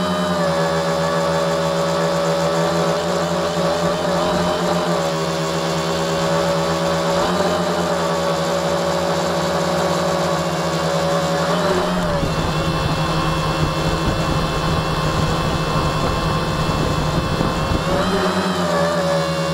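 Electric motors and propellers of a tricopter running with a steady, slightly wavering hum. About twelve seconds in the sound turns rough and noisy with a low rumble for several seconds, then the steady hum returns near the end.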